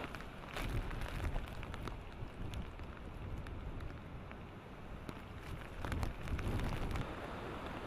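Hurricane wind and driving rain, with raindrops hitting the camera in many sharp ticks. A low rumble swells about a second in and again near the end as gusts buffet the microphone.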